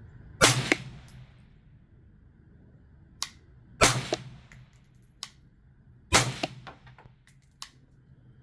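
A rifle fired three times at slow, deliberate intervals, the second shot about three and a half seconds after the first and the third a little over two seconds later, with lighter metallic clicks and clinks between the shots.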